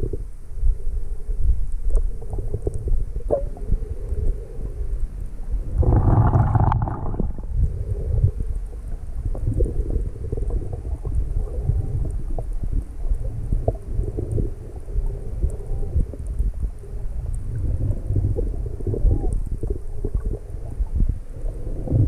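Muffled rumbling and gurgling of moving water picked up by a camera held underwater while snorkeling, with a louder rushing whoosh about six seconds in.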